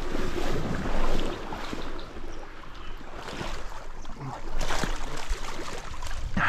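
Shallow river water splashing irregularly, as from someone wading through it, with wind buffeting the microphone.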